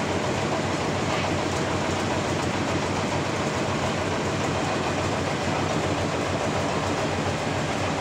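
Sawmill saw running steadily while cutting a trembesi (rain tree) log, a dense, even machine noise with no pauses.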